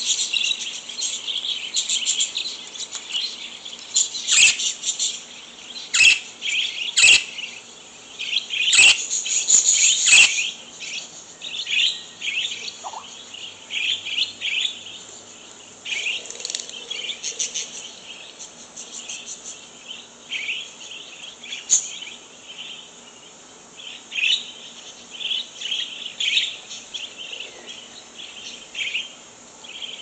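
Budgerigar chirping and chattering, a pet budgie calling back to recorded budgie flock calls played from a laptop. The chirping is continuous, with several loud, sharp calls in the first third.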